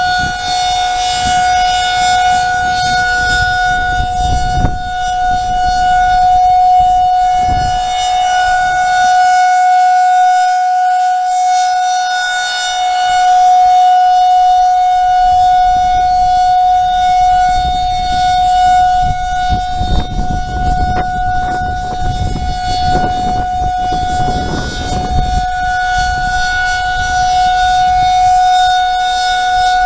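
Outdoor tornado warning siren sounding during its monthly test, holding a steady tone without rising or falling. Bouts of low rumbling noise sit under it, strongest about twenty seconds in.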